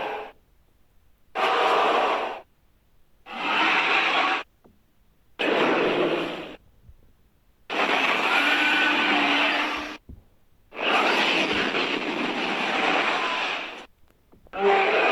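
Dragon roars made with a human voice as rough growls: a run of roars, each one to three seconds long, with short silent pauses between them.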